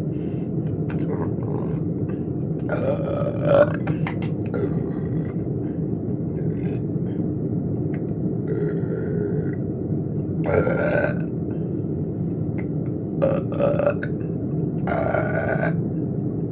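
A woman burping several times, each burp short and a few seconds apart, over a steady low hum.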